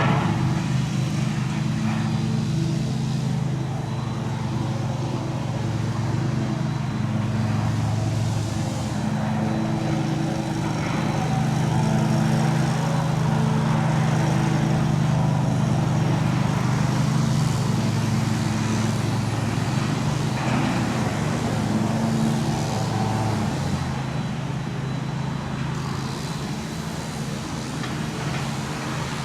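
Diesel engine of a large demolition excavator running, its pitch stepping up and down as the load changes.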